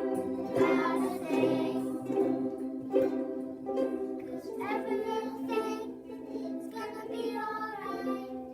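A group of children strumming ukuleles together on C, F and G chords and singing along to a reggae song.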